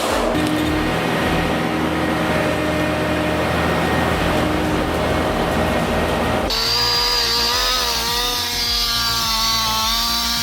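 Power saw cutting wood on forestry machinery, running steadily. About two-thirds of the way through, the sound switches abruptly to an engine-driven saw with a steady, slightly wavering pitch.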